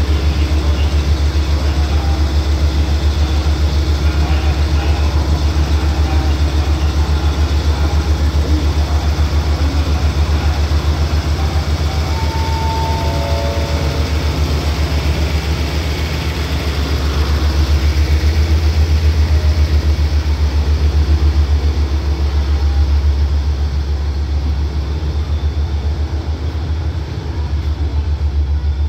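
Diesel engine of a train at the platform running steadily, a deep constant hum.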